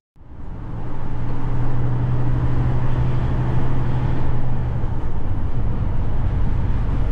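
HGV lorry under way on the road: a steady low engine drone with road and tyre noise. It fades in just after the start, and the deepest part of the drone grows heavier about five seconds in.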